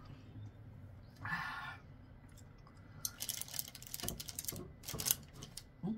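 Crunching of crispy fried chicken being chewed close to the microphone: a quick run of sharp crackles from about halfway through, after a short breathy hiss about a second in.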